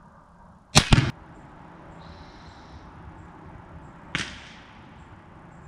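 35 Whelen rifle shot heard at the paper target: a very loud, sharp double crack as the Barnes 180-grain TTSX bullet strikes the paper. A second, fainter bang with a short ringing tail comes about three seconds later.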